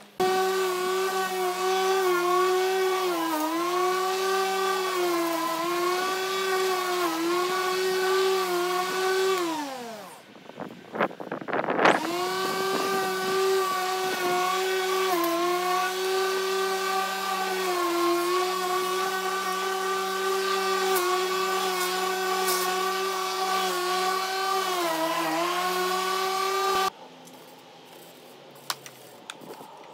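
Corded electric rotary lawnmower running as it cuts grass, a steady motor whine that dips briefly in pitch now and then. About nine seconds in it spins down with a falling pitch, then starts again a couple of seconds later and runs on until it cuts off suddenly near the end.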